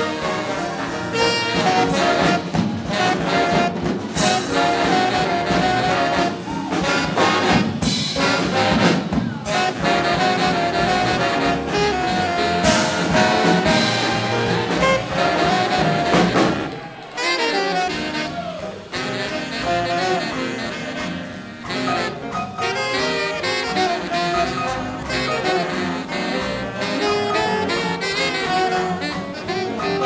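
Big band jazz orchestra playing a hot swing number, with saxophones, trumpets and trombones together. A little past halfway the band drops back for a moment, then comes in full again.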